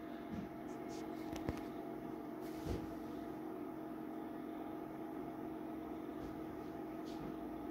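Steady hum of electrical equipment with a constant tone, broken by a couple of faint clicks about one and a half and nearly three seconds in.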